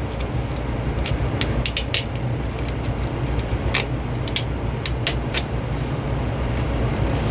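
Scattered small sharp clicks and taps of plastic cordless-phone handset parts being handled and fitted together, over a steady low hum.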